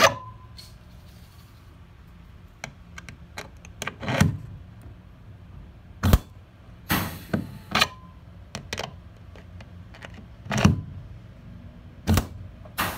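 Rivets being set into an aluminium window frame with a rivet tool: a series of sharp snaps at uneven intervals, every second or so, some with a short noisy tail.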